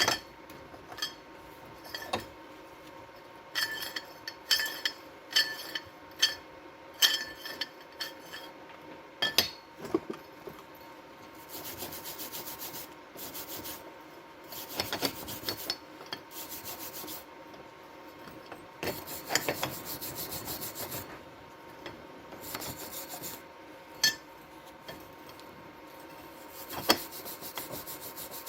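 Hand work on the steel of a greenhouse vent-opener handle under repair: a run of sharp metallic taps that ring, then a series of rasping scraping strokes on the metal, each lasting a second or two.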